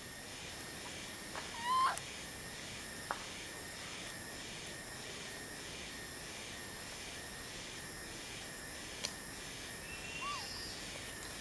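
A short, loud, rising animal call about two seconds in, and a fainter short call near the end, over a steady high chorus that pulses about twice a second.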